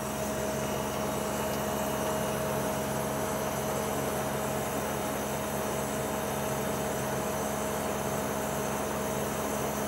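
Outdoor air-conditioning unit running steadily on spring-and-rubber anti-vibration feet: a constant hum with a few steady tones over a fan's even rush.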